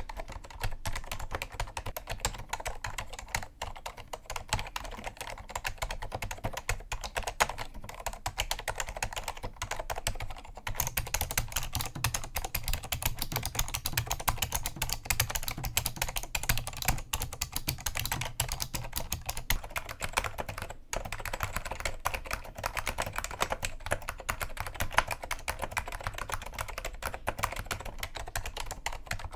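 Continuous typing on an Apple Extended Keyboard II with Alps SKCM Cream Damped switches: a rapid stream of key clicks. About a third of the way in the sound changes, with a heavier low thump and a brighter click, as a differently modified switch setup takes over.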